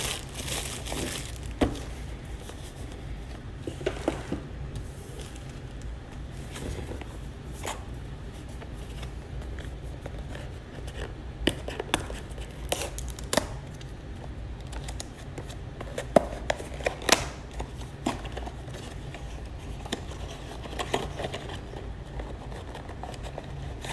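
Packaging of a GoPro head strap and quick clip being opened and handled by hand: scattered crinkling and tearing, with sharp clicks now and then, over a steady low hum.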